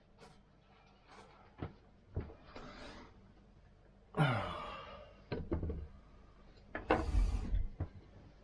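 Handling noises from objects being moved on a work surface: a few light knocks and clicks, a creak falling in pitch about four seconds in, and a heavier scrape with a low rumble around seven seconds in.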